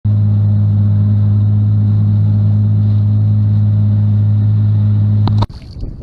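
A loud, steady low mechanical hum, unchanging in pitch and level, that cuts off abruptly about five and a half seconds in.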